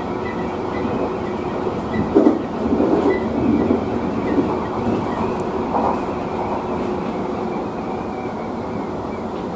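Running noise inside a Tobu 30000 series electric train car: a steady rumble of wheels on rail with a faint steady whine underneath, and a louder patch of clattering about two to four seconds in.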